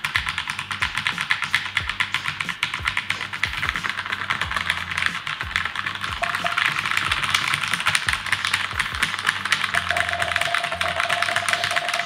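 Rapid, continuous typing on a Keychron K2 mechanical keyboard: a dense stream of key clicks.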